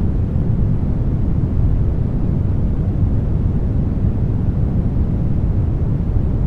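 Brown noise: a steady, deep hiss, strongest in the low end and thinning out toward the highs, with no changes.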